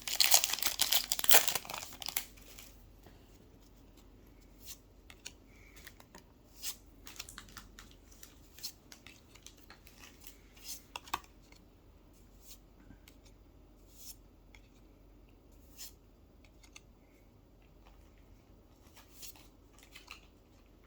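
Foil Pokémon booster pack torn open, with loud crinkling and ripping for about the first two seconds. Then soft, scattered clicks and taps as the cards are handled.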